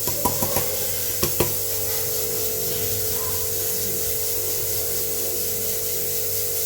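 A few light knocks in the first second and a half, then a steady hum with a constant tone.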